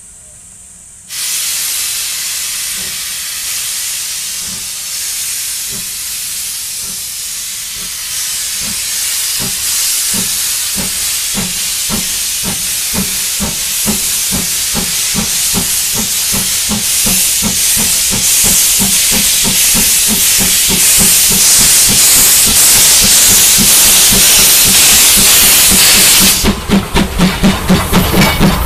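Class C11 steam tank locomotive approaching with a loud steam hiss that starts suddenly about a second in, over a rhythmic exhaust chuff that grows steadily louder. Near the end the hiss cuts off and the engine passes close by with a pulsing, rhythmic beat.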